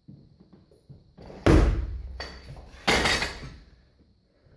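Two loud thuds about a second and a half apart, each fading out over about a second in the echoing hall.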